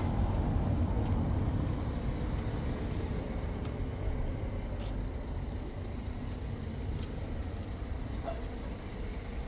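Low rumble of road traffic, loudest in the first couple of seconds and then easing off slowly, with a few faint clicks.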